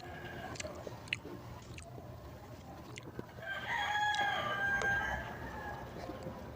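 A rooster crowing once, one call of about two seconds, with faint scattered clicks around it.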